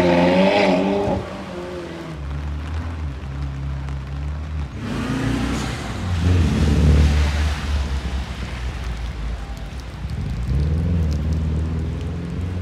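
Car engines revving and pulling away, their pitch rising and falling several times over a steady low rumble, on a wet road.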